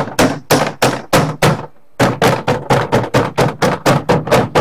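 Fist pounding the plastic interior trim panel of a 2012 Ford F-150's rear door, a quick run of hollow knocks about four a second with a brief pause before the halfway point, seating the panel's retaining clips back into the door.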